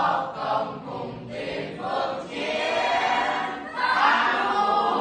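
A group of teenage students singing a Vietnamese revolutionary song together in chorus, mixed boys' and girls' voices, in sung phrases with brief breaths between them.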